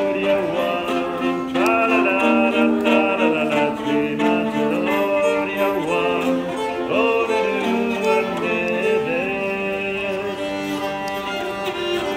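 Nyckelharpa, the Swedish keyed fiddle, bowed in a continuous melody of long held notes joined by short slides.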